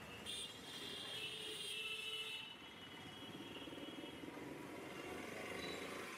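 Street traffic. A high ringing tone, like a horn or bell, sounds for about two seconds near the start. After that a small motor vehicle's engine runs close by with a low, pulsing note.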